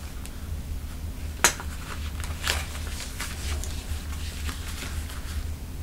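Wedge shoes being handled and set down: a few light knocks and taps, the sharpest about a second and a half in, over a low steady hum.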